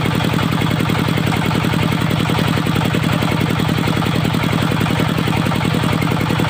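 Diesel engine of a locally built mobile circular sawmill running steadily with a fast, even beat.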